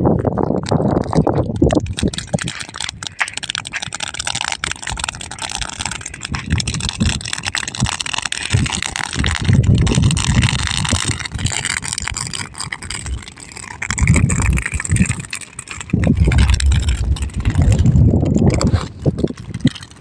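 Burning crop stubble crackling in a field, with wind gusting on the microphone in loud low rumbles several times.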